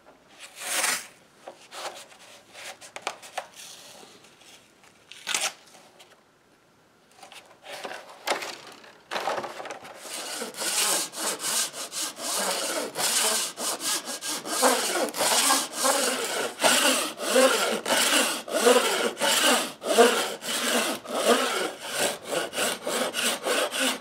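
A few scattered knocks of handling, then from about ten seconds in a small hand saw cutting a thin sheet of oak veneer along a steel straightedge, in quick, steady strokes about three a second.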